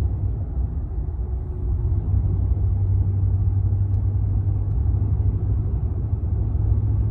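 A car driving along, heard from inside the cabin as a steady low rumble of engine and road noise.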